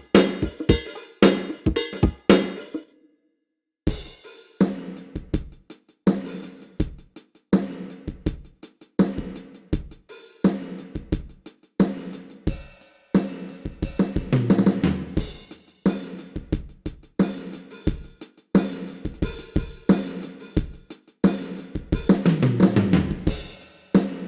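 Sampled drum kit from the Ketron SD90 SF2 SoundFont playing a groove of kick, snare, hi-hat and cymbal. It stops briefly about three seconds in, then starts again, with heavier low drum passages around the middle and near the end.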